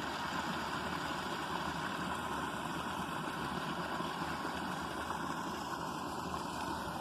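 Small waterfall splashing: a steady rush of falling water.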